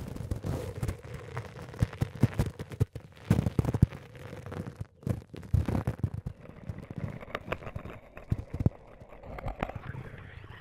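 Irregular thuds, knocks and crackling clicks, some close together and some spaced out, over a grainy noise bed, with a faint steady hum in the first few seconds.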